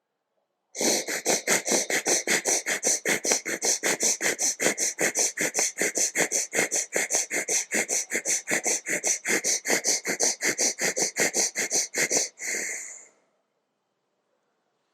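Bhastrika (bellows) breathing through one nostril: fast, forceful breaths in and out through the nose, about four strokes a second for some eleven seconds, ending with one longer breath out.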